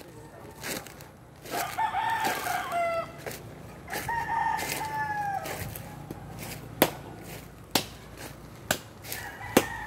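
A rooster crowing twice, each crow a long call that drops in pitch at its end, the first about one and a half seconds in and the second about four seconds in. In the second half come several sharp knocks, about one a second.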